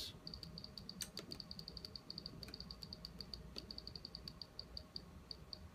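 Function generator's amplitude control being turned step by step, giving a faint, rapid, uneven run of short high-pitched ticks, one for each step, with a few sharper clicks among them. The ticks stop shortly before the end.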